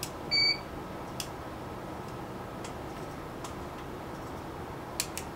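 A single short electronic beep about half a second in, from an ROV control console's touchscreen, followed by a few faint scattered clicks over a steady background hum of control-room equipment.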